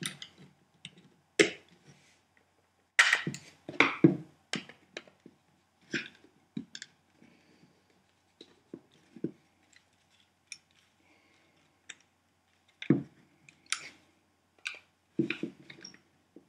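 Scattered clicks and knocks of a plastic power-tool battery casing being handled and fitted together, with a screwdriver turning its bolts. The loudest knocks come about three to four seconds in and again about thirteen seconds in.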